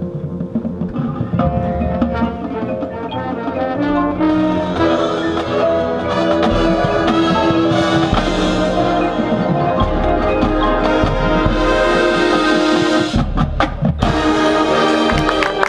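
Marching band playing: brass and drums, over pitched mallet percussion, swelling to full volume about four seconds in. Near the end the ensemble cuts off abruptly for a moment, then comes back in with loud hits.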